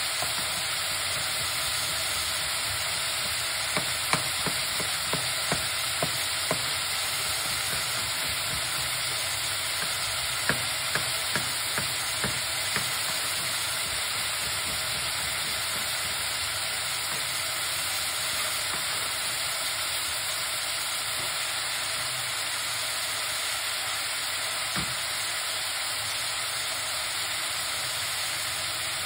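Sliced onion, carrot and bell pepper frying in an aluminium pot, a steady sizzle, with short runs of sharp clicks about four and ten seconds in and one more near the end.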